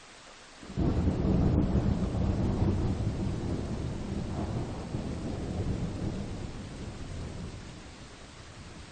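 Thunder: a sudden low rumble about a second in that slowly fades over several seconds, over a steady hiss of rain.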